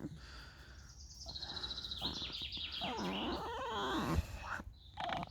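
Fox squeaking and whining, a run of wavering high-pitched calls that slide lower, from about a second in until near the end. It is the squeaky call of a fox that likes and dislikes what is happening at the same time.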